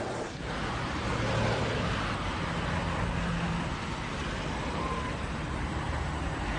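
Steady road noise of a car driving in traffic: a low engine hum under the rush of tyres and passing vehicles.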